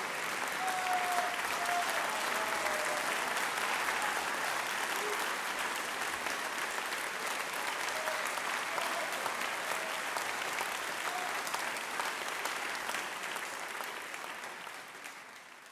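Audience applauding and cheering, with a few short calls standing out above the clapping; it fades out near the end.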